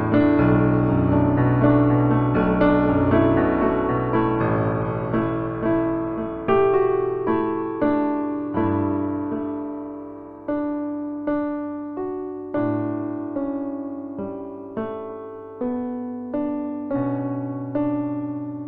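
Slow, gentle piano music: fuller chords at first, thinning after about six seconds to single notes struck roughly once a second, each ringing and fading away.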